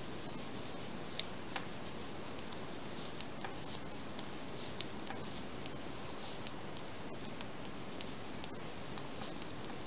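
Metal tips of circular knitting needles clicking irregularly as stitches are worked, light sharp ticks scattered over a steady hiss.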